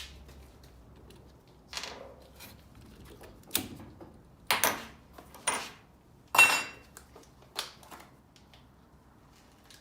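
Metal tools and drill bits being handled: a series of short clacks and clinks, one with a brief metallic ring, spaced about a second apart.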